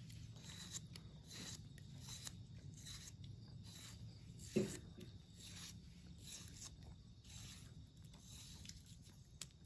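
Faint, irregular cutting sounds of a knife slicing tomatoes held in the hand, with pieces dropping onto a stone mortar of chilli paste. A brief louder sound about four and a half seconds in.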